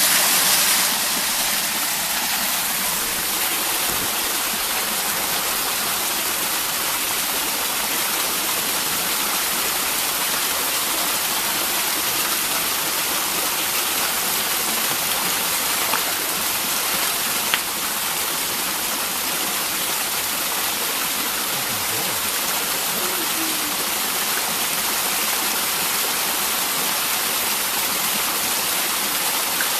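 Steady rush of flowing water from a stream, an even hiss-like roar that does not change, with one faint click about two-thirds of the way through.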